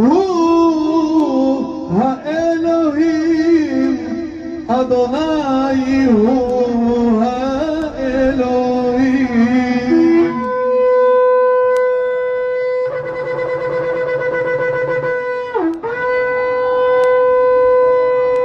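Shofar blasts: for the first half, wavering, overlapping horn notes that slide in pitch, then about ten seconds in a single long, steady blast that drops in pitch and breaks off briefly near the end before a second long, steady blast.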